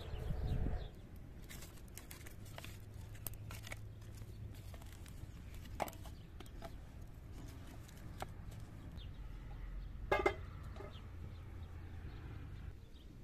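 A brief low rumble in the first second. Then scattered light clicks and knocks as firewood is handled and laid in an outdoor fire brazier, and a short chicken squawk about ten seconds in.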